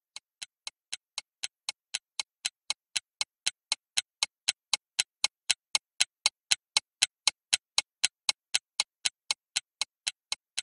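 Stopwatch-style ticking sound effect counting down a quiz timer: sharp, even ticks about four a second, growing louder toward the middle and fading toward the end.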